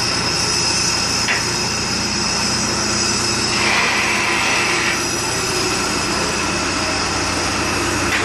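Bell backhoe loader's diesel engine running steadily, with a short click about a second in and a higher hiss for about a second and a half near the middle.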